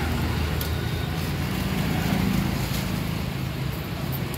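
Steady low street rumble, like traffic passing, with a few faint clicks.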